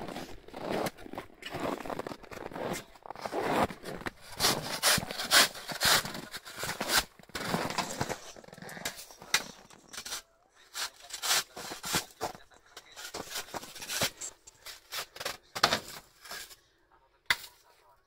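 Snow crunching: footsteps through deep snow, then a perforated scoop shovel scraping and scooping packed snow in short strokes, more sparsely after about ten seconds.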